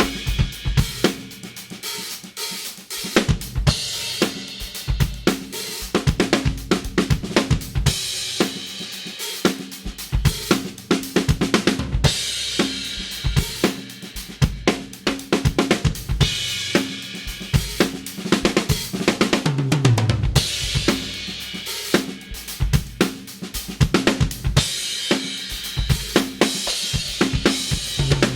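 Drum kit playing a groove of kick, snare and hi-hat, with an Istanbul Mehmet Samatya crash cymbal struck about every four seconds and left to ring out. Near twenty seconds in comes a tom fill falling in pitch.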